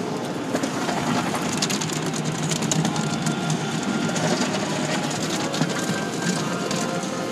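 Automatic car wash heard from inside the car: rotating cloth brushes slapping and scrubbing against the windows and mirror, with water spraying on the glass, a steady wash of noise broken by many quick slaps and ticks.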